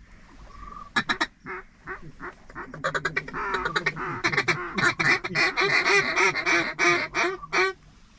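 Mallard hen quacks blown loud and close on a hunter's duck call: a quick group of quacks about a second in, then a fast chattering run that goes into a long string of quacks and stops shortly before the end, calling to ducks coming in to the decoys.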